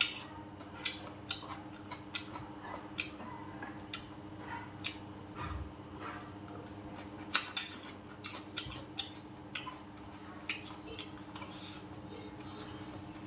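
Close-up eating sounds: irregular sharp clicks and smacks, about one or two a second, from chewing and from a metal spoon and chopsticks against ceramic dishes, the loudest click about seven seconds in, over a faint steady hum.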